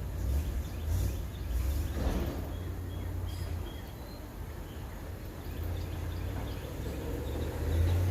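A few faint, short bird chirps about three seconds in, over a steady low rumble.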